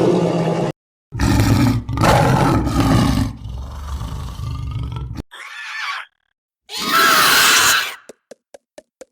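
Dinosaur sound effects: several separate roars and a low growl, each cut off by a short silence, with a loud roar about seven seconds in, followed by about five quick clicks near the end.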